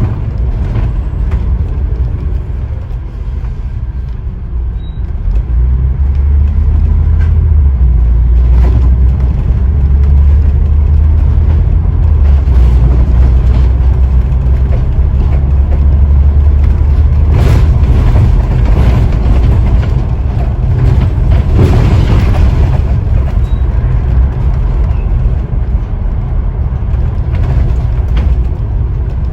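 Scania N94UD OmniDekka double-decker bus on the move, its engine running with a deep steady drone that grows louder about six seconds in and holds there. There are some noisier rattling patches later on.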